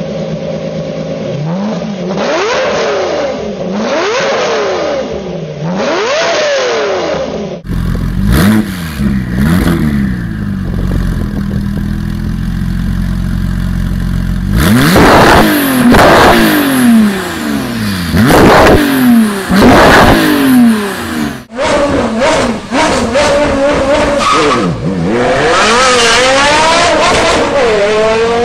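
Sports car engines revving in a string of separate clips that cut abruptly into one another, the engine pitch climbing and falling again and again as the throttle is blipped. The revs are loudest in the stretch from about 15 to 21 seconds in.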